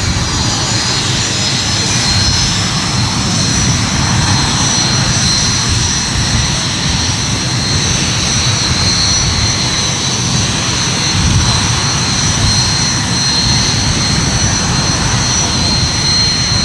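Aircraft engines running steadily: a continuous roar with two steady high-pitched whines over it.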